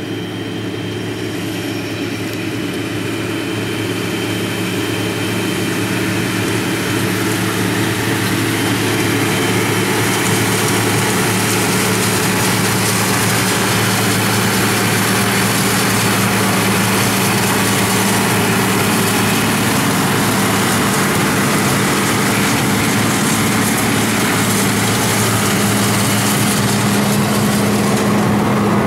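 Case tractor engine running steadily while it pulls a John Deere round baler picking up hay. The sound grows louder over the first ten seconds or so, then holds steady.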